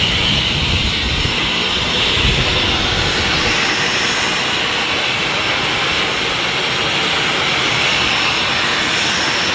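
Jet aircraft engines running steadily, a high hiss with no change in pitch. Wind buffets the microphone during the first two seconds or so.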